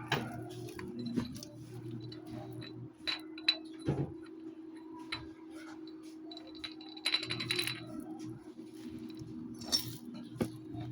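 Honda ADV160 scooter engine running with a steady hum, over irregular metallic clicking and clinking from the CVT: the stock flyballs rattling loose in the variator.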